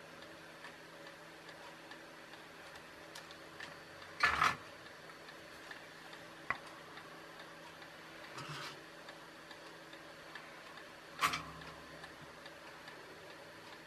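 A few knocks and clicks from handling a small electronic kit's circuit board, its wires and a soldering iron at the bench, the loudest about four seconds in and another near eleven seconds, over a faint steady ticking.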